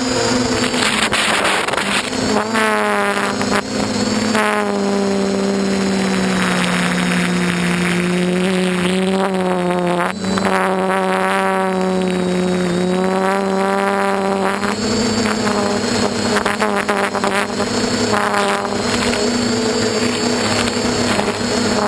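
DJI F450 quadcopter's electric motors and propellers whining in flight, the pitch drifting up and down as the throttle changes, with rushing air over it.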